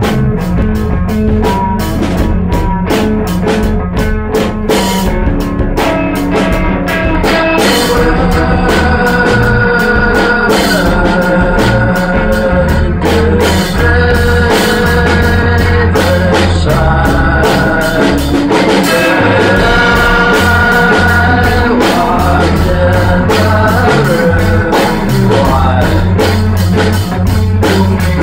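Rock band improvising in a live room: drum kit with a vocal re-amped through a Leslie rotating speaker cabinet, the held, wavering voice coming in about eight seconds in. The in-room vocals bleed onto the drums and blow out the drum sound a little.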